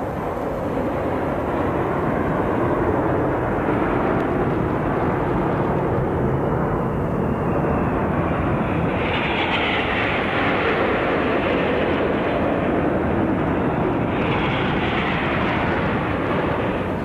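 Steady engine roar from the passing military parade, swelling louder about nine seconds in and again about fourteen seconds in.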